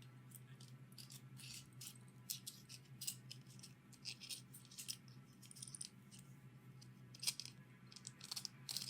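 Small metal tools and parts being handled, clinking and tapping in light, irregular clicks over a faint steady low hum.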